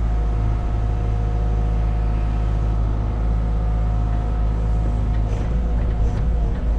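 Cat 306 mini excavator running under load while digging, heard from the cab: a steady diesel drone with the whine of the hydraulics. There are a few clatters of the bucket in the dirt near the end.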